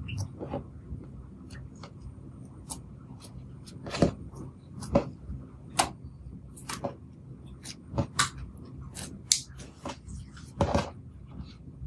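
Clear slime with crumbled pink blush powder being kneaded and squeezed by hand, giving irregular sticky clicks and pops, with several louder pops in the second half.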